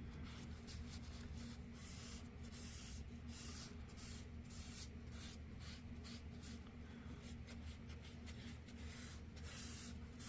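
Hand sanding a wooden oak knife handle with 150-grit sandpaper: short, scratchy rubbing strokes, about two or three a second, over a steady low hum.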